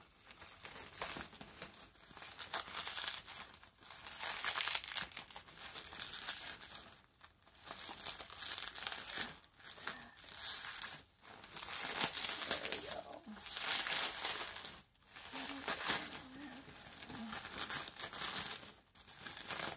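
Bubble wrap being handled and pulled apart by hand while unwrapping, crinkling and rustling in stretches of a few seconds with short pauses between.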